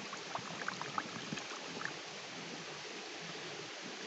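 Steady rush of a flowing stream, with a few brief light blips in the first two seconds.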